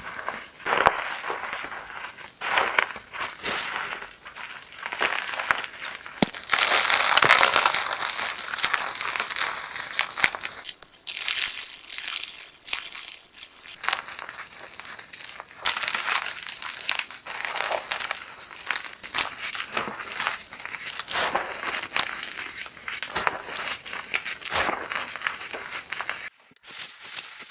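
Hard chalk block being crushed and crumbled in a run of irregular crunches and crackles, with a denser, louder stretch about seven seconds in.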